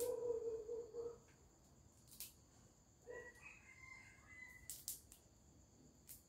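Crickets chirring steadily in the background, with a rooster crowing during the first second and a higher bird call about three seconds in. A few sharp snaps as fresh herb stems are broken by hand.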